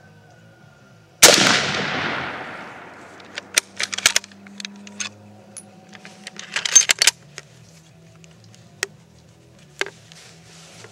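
A single rifle shot from a 1953 Hungarian M44 Mosin-Nagant carbine in 7.62x54R, ringing away over about two seconds. It is followed by a run of sharp metallic clicks and clacks as the bolt is worked, and two lone clicks near the end.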